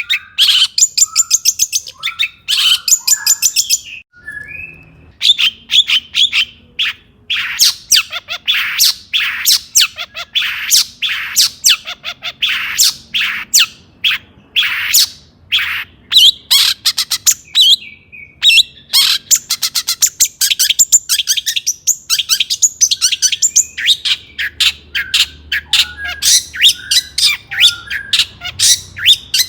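Long-tailed shrike (cendet) singing loudly: rapid runs of short, harsh, scratchy notes, several a second, broken by a couple of brief pauses.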